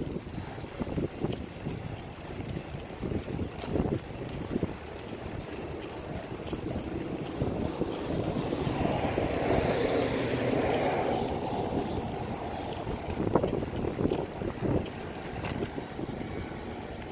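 Wind buffeting the microphone of a recumbent trike rolling along a paved trail, a gusty rumble throughout. A vehicle passes on the road beside the trail about halfway through.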